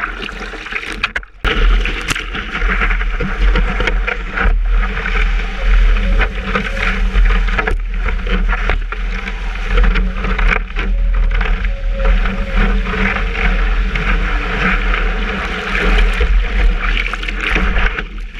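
Sea water rushing and splashing against a surfboard and the camera mounted on its nose, with a strong steady low rumble, as the board is paddled and then ridden along a breaking wave. There is a brief dip in the sound about a second in.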